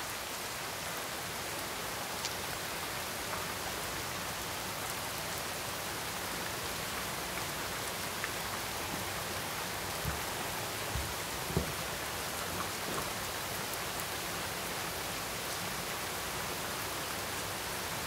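Heavy typhoon rain falling steadily on a lawn and garden: an even hiss with a few faint drop taps.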